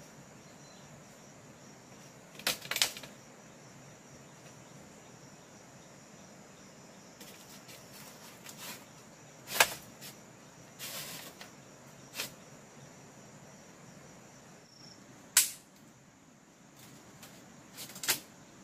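Scattered sharp knocks and rattles of bamboo being handled, several seconds apart, the loudest about halfway through and again a few seconds later, over a steady high drone of insects.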